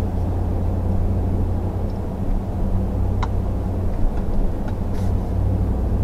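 Steady low in-cab drone of a Ford F-150 pickup driving at about 24 mph, its 5.0 V8 still running after the start/stop button is pressed. A single short click sounds about three seconds in.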